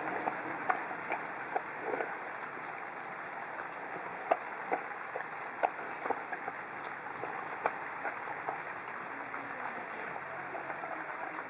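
Samoyed dog eating from a plastic bowl: irregular crunching chews and sharp clicks, a few of them loud, over a steady background hiss.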